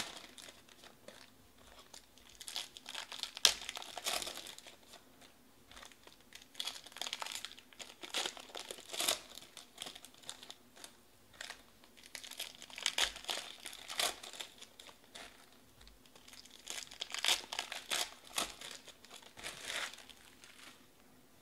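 Foil wrappers of trading-card packs crinkling as they are handled and torn open by hand, in bursts every few seconds with quieter pauses between.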